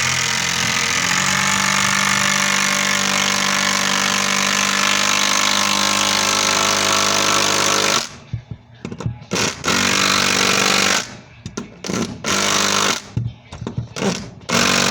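Makita 12-volt cordless impact driver hammering a 4-inch screw up through ceiling sheetrock into a rafter. It runs steadily for about eight seconds, then in a series of short bursts with pauses between them.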